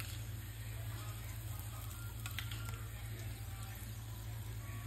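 A few faint clicks of a steel spoon against a small tadka pan as hot oil tempering with mustard and sesame seeds is spooned over dhokla, over a steady low hum.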